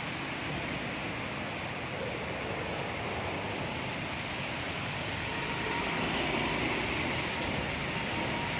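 Steady rushing, splashing noise of floodwater. From about six seconds in, a vehicle wading through the water grows louder.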